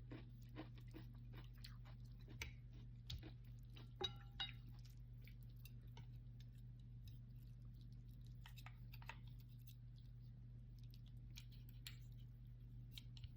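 Close, quiet chewing of noodles: soft wet mouth clicks scattered through, with a short ringing clink about four seconds in, over a low steady hum.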